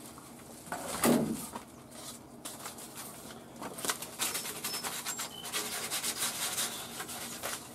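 Sandpaper rubbed back and forth over the freshly saw-cut end of a white PVC pipe, smoothing the cut in quick rasping strokes that begin a couple of seconds in. A single loud knock comes about a second in.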